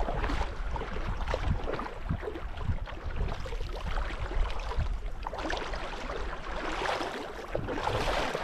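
Spring runoff water rushing and splashing, with wind buffeting the microphone as a low rumble.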